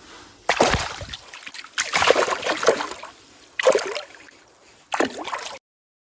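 Water splashing in four separate bursts, the second the longest, then the sound cuts off abruptly.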